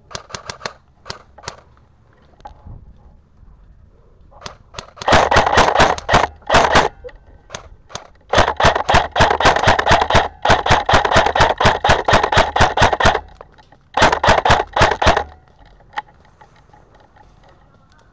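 Airsoft rifle firing: a few single shots near the start, then long bursts of rapid shots, the longest running about five seconds.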